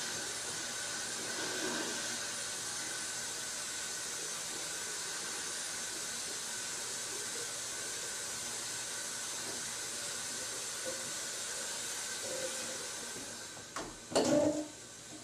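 Steady hiss of room noise. Near the end an interior door swings shut with a click and a louder knock, and the hiss falls away as it closes.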